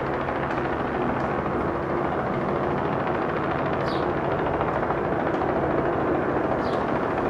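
Steady engine drone with a low hum, under a constant rushing noise.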